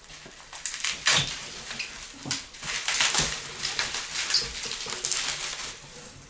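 Plastic wrapping crinkling and rustling in irregular bursts as it is pulled off the lid of a home smoker.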